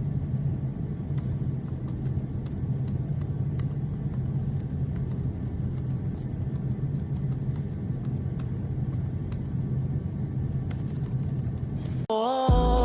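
Typing on a compact Bluetooth keyboard with round keycaps: light, irregular key clicks over a steady low hum.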